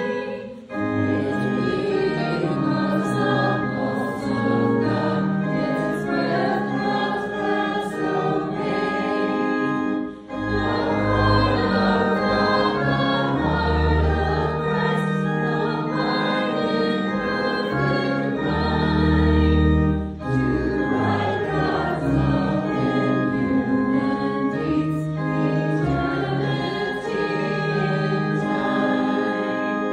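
A group of voices singing a hymn with church organ accompaniment, sustained chords over low bass notes, breaking briefly between lines about every ten seconds.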